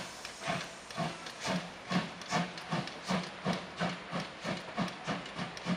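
Steam locomotive chuffing in an even beat of about two exhaust beats a second, over a hiss of steam, as it runs up light to couple onto the front of its train.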